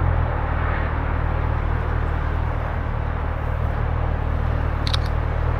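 Steady outdoor rumble, a deep low-pitched noise like wind on the microphone mixed with distant traffic, with two quick sharp clicks about five seconds in.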